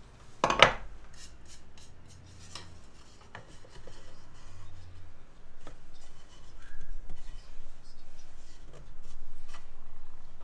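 A sharp wooden knock about half a second in, then scattered taps and wood rubbing on wood as a thin board is worked into the notched sides of a handmade wooden spice rack.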